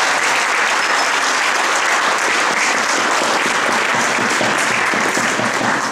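Audience applauding: dense, steady clapping from many hands, beginning to die away right at the end.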